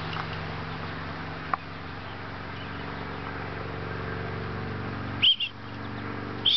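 Steady low mechanical hum, like a motor running, with two short high-pitched chirps near the end.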